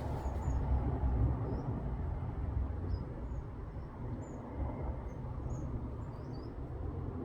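Outdoor field ambience: a steady low rumble with faint, short high-pitched chirps scattered throughout.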